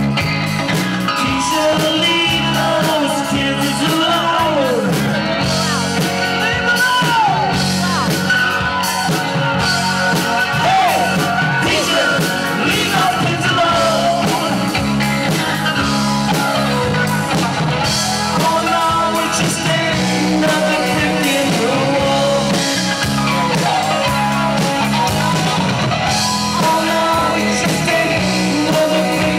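Live rock band playing, with a singing voice over electric guitar and bass.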